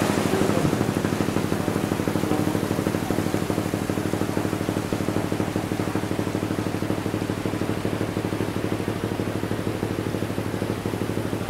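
A motor running steadily with a low hum and a rapid, even pulse, over a hiss that fades slightly.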